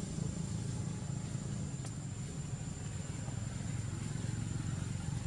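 Steady low rumble of background noise, with a thin steady high-pitched whine above it and a faint click about two seconds in.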